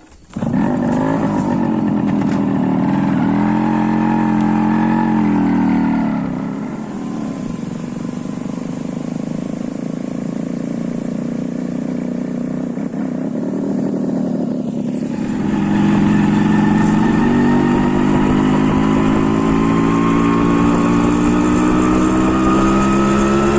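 Motorcycle engine running while riding, easing off about six seconds in, then pulling harder again from about fifteen seconds with its pitch slowly rising.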